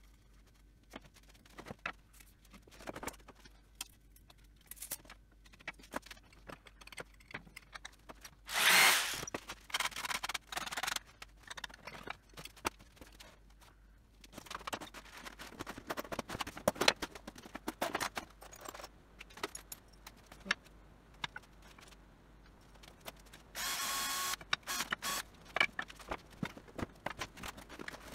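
Timber strips handled on wooden trestles: scattered knocks and clatter of wood, with two short bursts of a power tool, one about nine seconds in and a steadier one about twenty-four seconds in.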